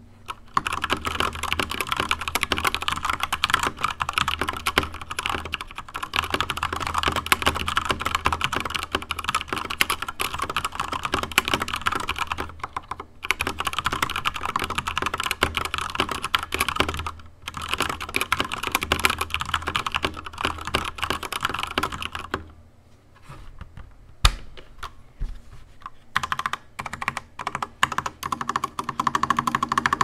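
Fast typing on a Corsair K70 RGB TKL mechanical keyboard with stock linear silver switches, stock keycaps and lubed stabilisers: a dense stream of key clacks. Two brief pauses break it, then come a few seconds of slower, scattered keystrokes with one sharp loud clack, before fast typing resumes.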